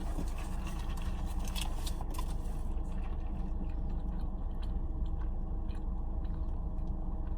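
Mouth noises of chewing and biting into fast food, with small clicks in the first few seconds, over a steady low hum.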